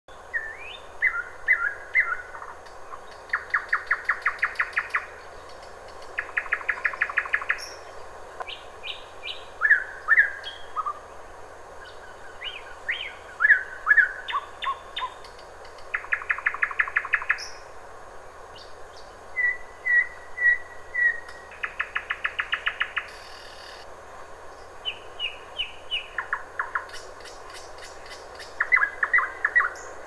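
Nightingale singing in separate phrases a second or two apart. Some phrases are fast runs of one note repeated many times, others short whistled slurs.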